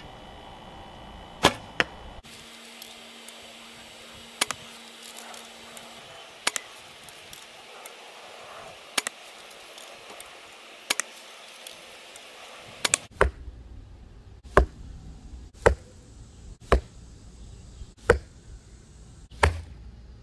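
Arrows being shot from a recurve bow: about a dozen sharp snaps of release and arrow strike. They come every two to three seconds at first and about once a second near the end.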